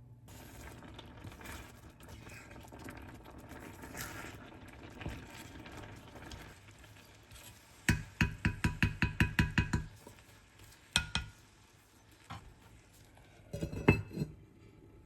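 Kitchen utensils in use: soft stirring and scraping in a pot or bowl, then a run of quick knocks of a utensil against the dish, about five a second for two seconds, followed by a couple of single knocks and a short cluster of clinks near the end.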